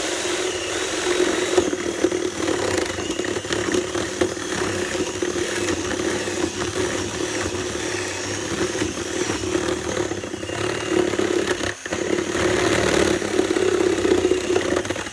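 Electric drill boring into the edge of a wooden door, clearing the last bridge of wood between holes in a lock mortise. It runs steadily under load, dips briefly about twelve seconds in, and stops right at the end.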